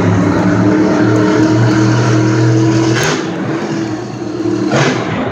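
Monster truck engine running hard at high revs with a steady deep drone, then easing off about three seconds in. Two short harsh bursts of noise come about three seconds in and near the end.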